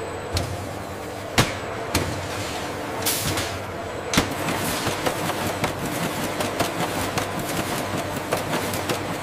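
Factory processing-line machinery running steadily with sharp metallic clanks and knocks: a few loud ones in the first four seconds, then lighter, quicker knocks.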